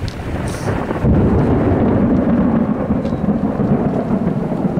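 Low, steady rumble of the thunderstorm, jumping louder about a second in and then holding.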